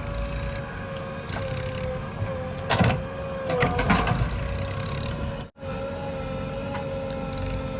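JCB 3DX backhoe loader's diesel engine running under load with a steady hydraulic whine, and a few sharp clanks and scrapes of the bucket a few seconds in.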